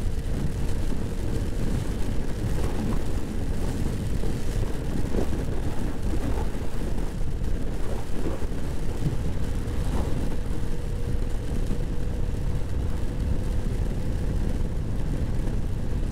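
Honda PCX scooter riding at speed in rain and a strong crosswind: wind rushing and buffeting over the microphone, with a steady hum from the scooter underneath.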